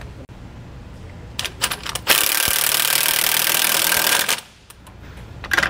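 Cordless impact wrench with an 11/16 socket hammering a lock nut tight on a sway bar bushing clamp for about two seconds, starting about two seconds in. A few metal clicks of the socket and wrench come just before and near the end.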